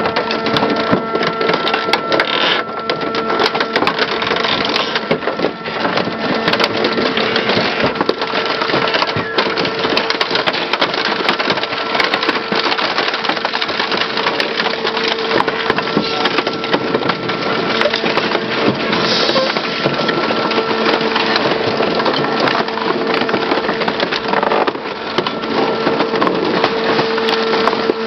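Industrial twin-shaft shredder tearing up a car body: a continuous loud crunching and crackling of metal and glass breaking between the rotating cutter shafts, over a steady machine hum.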